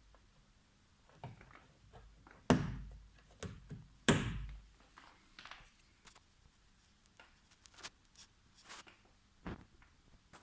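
Clicks and knocks of a car door's handle mechanism and trim being worked by hand, with two loud thunks about two and a half seconds in and again a second and a half later, each dying away briefly.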